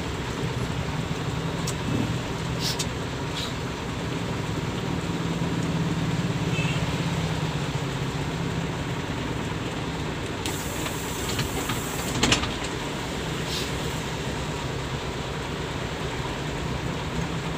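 Bus engine droning steadily with road noise while driving, with a few light clicks and rattles and a louder knock about twelve seconds in.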